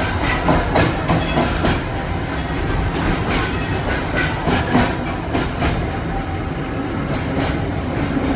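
Vintage Australian-built streetcar running through a tunnel, heard from inside the car: a steady rumble of wheels on rails with irregular clicks and clacks from the track.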